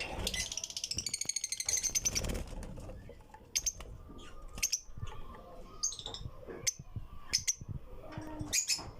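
Lovebirds calling: a rapid high chatter for the first couple of seconds, then short, sharp chirps about once a second.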